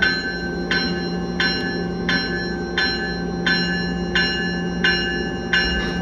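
Commuter-train locomotive bell ringing steadily, about one stroke every 0.7 seconds, over a steady engine hum.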